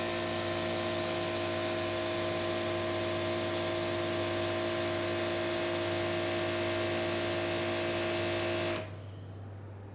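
Prototype electric pressure washer's motor and pump running steadily under load, a constant whine with a hiss over it. It stops abruptly near the end.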